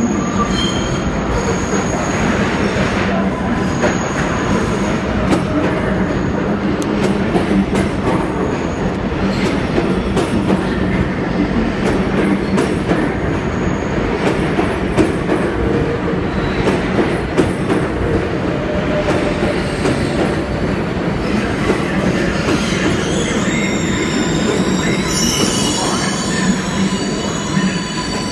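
R142A subway train pulling into the station: a loud, steady rumble of steel wheels on rail with light clicking from the rail joints. In the last several seconds, high squealing tones come in as the train slows toward a stop.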